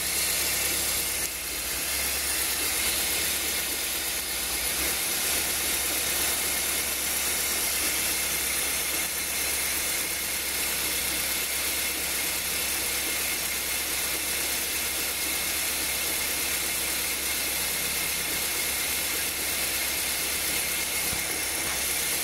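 Toyota Corolla's engine idling steadily with reverse gear engaged, running on a newly fitted accessory belt and tensioner. The engine is being tested to see whether the fresh tensioner has cured a cold-engine noise.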